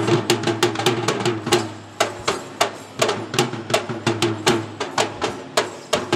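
Sri Lankan Kandyan drums (geta bera), double-headed barrel drums beaten by hand, playing a fast, driving rhythm of sharp strokes with a ringing low tone under them.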